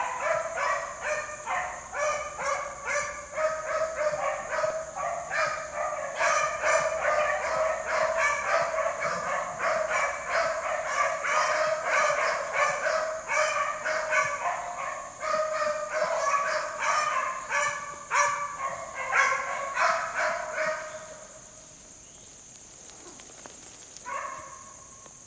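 A pack of beagles baying on a rabbit's trail, many overlapping rapid bawls and barks. The chorus fades out about 21 seconds in, with one more call shortly before the end.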